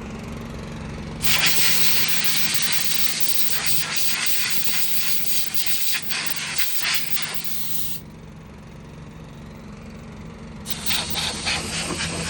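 Compressed-air blow gun hissing in long blasts as it blows dust out of a dirty air-conditioning filter, over an engine running steadily underneath. The air starts about a second in, stops around eight seconds, and starts again near the end.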